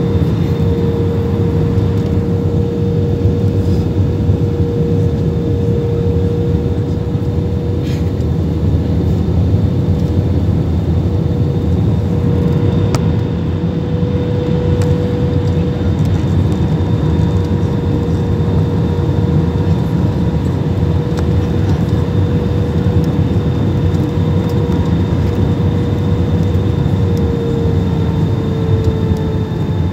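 Airbus A320 cabin noise heard inside the cabin from a window seat over the wing on final approach: a steady deep rumble of engines and airflow with a steady engine whine, which sinks a little in pitch near the end as the plane comes over the runway.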